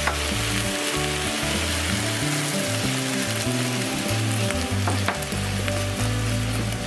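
Eggplant and chicken breast sizzling in a hot frying pan in freshly added ponzu sauce, stirred with chopsticks. Two sharp clicks, near the start and about five seconds in, come from the chopsticks against the pan.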